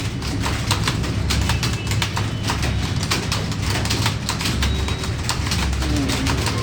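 Rapid keystrokes on computer keyboards during a timed typing speed test: a fast, irregular stream of key clicks.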